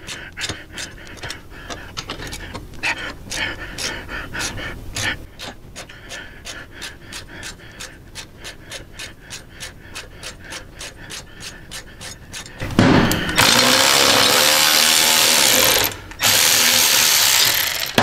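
Hand ratchet with a 5/16 Allen socket clicking steadily, about three clicks a second, as a floorboard bracket bolt is worked out. Near the end, a much louder power tool runs twice with a short break between.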